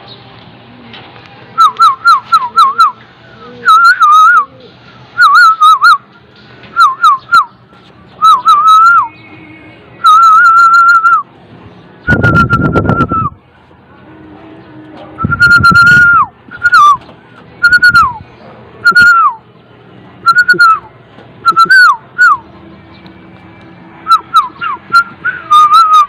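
A person whistling loudly to call pigeons back to the loft: repeated short whistles that slide down in pitch, in quick runs, with a few longer held notes. There are two short bursts of rushing noise about halfway through.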